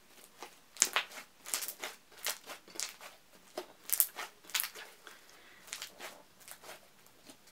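Thick slime being squeezed and stretched in the hands, making an irregular series of sharp clicks, about two a second.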